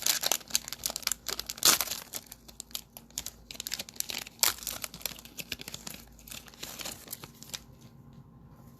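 Crinkling and rustling of trading card packs and cards being handled, a dense run of small crackles that thins out after about five seconds and stops shortly before the end.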